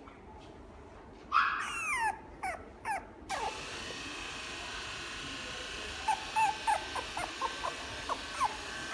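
Puppy whimpering: a few loud falling whines about a second and a half in, then a run of short high squeaks from about six seconds on.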